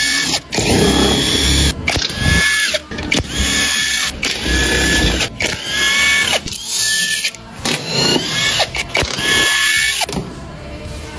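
Handheld power tool whirring in about seven short bursts of roughly a second each, its motor whine rising at the start of each burst, as fasteners are run out during an engine teardown.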